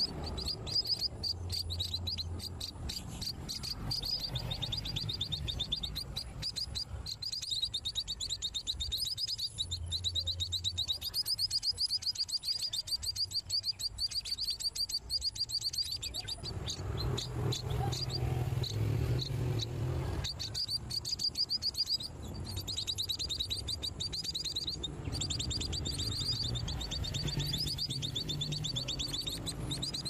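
Nestlings chirping, a fast stream of high-pitched calls that fades for a few seconds just past the middle, over a low rumble.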